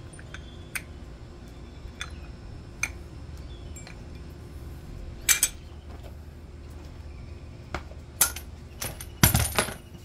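Light metal clicks and clinks as the brake pads are worked out of a Can-Am Maverick X3's brake caliper: scattered single clicks, a sharper clink about five seconds in, and a quick run of clinks and dull knocks near the end.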